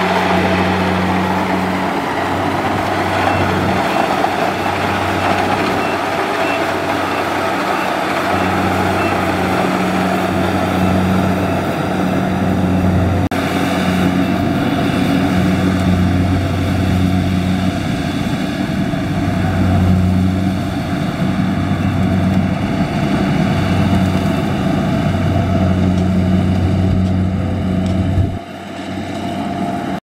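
Kubota combine harvester's diesel engine running steadily, a deep hum under a dense mechanical rush. The low engine hum drops away sharply near the end, leaving a quieter noise.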